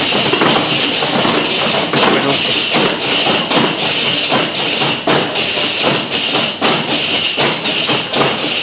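A group of panderetas (jingled tambourines) playing together in a jota chaconeada rhythm: a steady pattern of beats under a constant shimmer of jingles.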